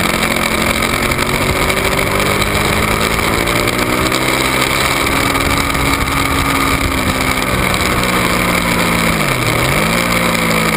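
Ducati 1199 Panigale's Superquadro V-twin engine running hard on the racetrack. Its pitch climbs slowly as the bike accelerates out of a corner. About nine seconds in, the revs dip briefly and recover, all over a steady rush of wind.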